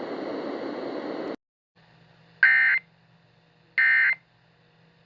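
A steady hiss cuts off about a second and a half in. It is followed by EAS end-of-message data bursts: short, identical warbling digital screeches, each about a third of a second long and about a second apart. Two are heard, and a third starts at the very end. They signal the end of the emergency alert broadcast.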